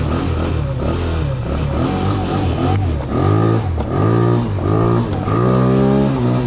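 125cc scooter engine, fitted with a big bore kit, revving up and dropping back several times, with a high, steady brake squeal coming and going in short spells from about halfway through. The rear brake is still squeaking after cleaning, which the rider puts down to glazed ('crystallized') brake pads or rim.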